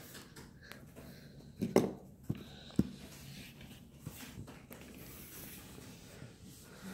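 Faint room tone with a few light knocks and taps, a cluster of them about two seconds in.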